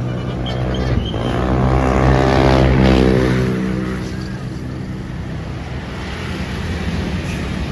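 A large vehicle, most likely a bus, drives past close by. Its pitched drone swells to its loudest about two to three seconds in, then drops in pitch as it goes by and fades.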